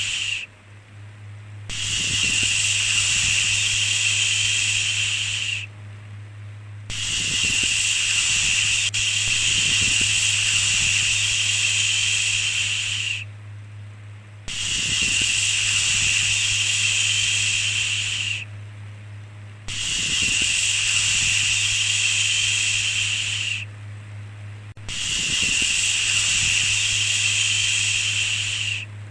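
Repeated long 'shhh' shushing sounds: about five in a row, each lasting four to six seconds, with a short pause of about a second between them. A steady low hum runs underneath.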